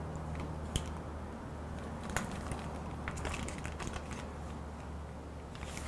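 Scattered small clicks and crinkling of plastic packaging as a bagged servo drive is handled and measured with digital calipers, over a faint steady low hum.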